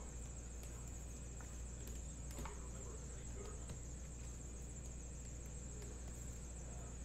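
Quiet room tone: a steady low hum and a steady high-pitched hiss, with a few faint, short clicks and rustles of trading cards being handled.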